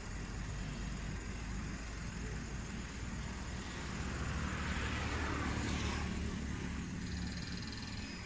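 A motor vehicle's engine running steadily, with a swell of passing-vehicle noise that builds and fades about four to six seconds in.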